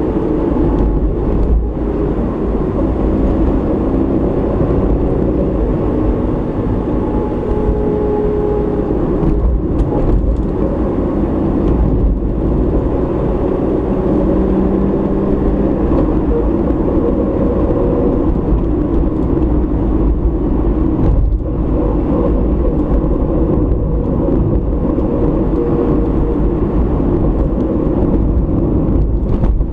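Car driving along a road at steady speed, heard through a dashcam: a steady low rumble of road and tyre noise with a faint engine hum.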